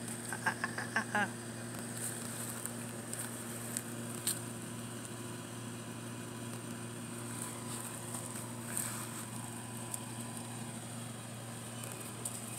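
Steady outdoor background: a low mechanical hum with a high steady hiss over it. A quick run of short, high chirps comes about half a second in, and a few faint rustles and ticks follow.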